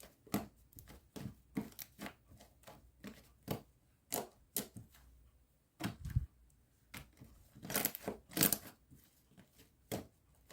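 Slime being kneaded and folded by hand, giving irregular sticky clicks and pops as air pockets squeeze out, several a second. There is a low thump about six seconds in and a louder run of pops a couple of seconds later.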